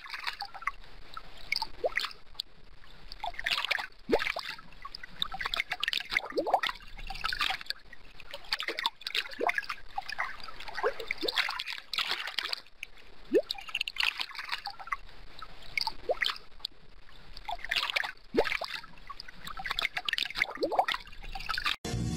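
Aquarium water trickling and splashing at the surface where the tank's filter return churns it, with irregular bubbling plinks and drips. It cuts off near the end to music.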